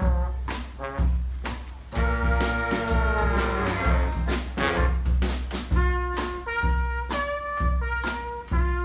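Street brass band playing a rock tune: horns sliding down together in the first half, then moving through short held notes, over a steady drum beat and a pulsing bass line.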